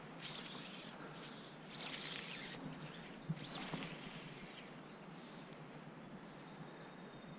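Outdoor riverside ambience: a steady hiss with three short, high-pitched animal calls in the first half.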